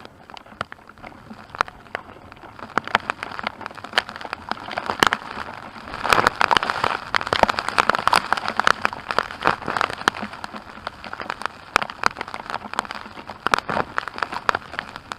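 Storm rain pelting down close to the microphone: a dense patter of sharp drop hits, heavier from about six seconds in.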